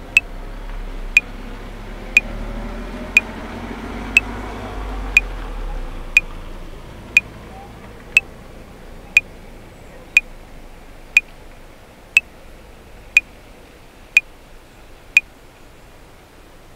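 Metronome clicking at 60 beats per minute, one sharp click a second for sixteen clicks (four bars of 4/4), stopping near the end. Underneath is a low rumble and hiss that swells over the first few seconds and then fades.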